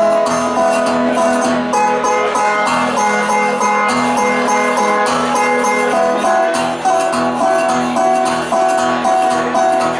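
Resonator guitar played solo, a steady, rhythmic picked instrumental with repeating melodic notes over a bass pulse.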